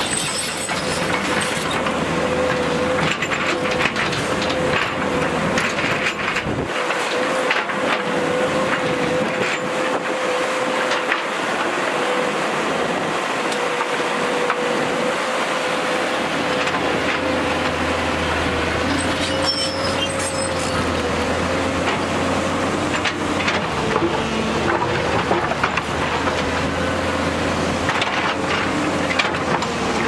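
JCB tracked excavator's diesel engine running steadily under load with a constant hum, while the bucket digs and scrapes through rocky soil with scattered knocks of stone.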